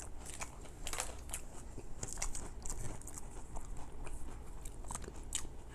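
A person chewing a chocolate banana wafer bar, with irregular crisp crunches of the wafer.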